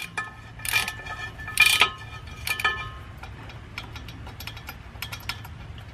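Socket ratchet clicking as the driveshaft's U-joint strap bolts are run in. It starts with three ringing metallic clinks about a second apart, followed by a run of light, quick ratchet clicks.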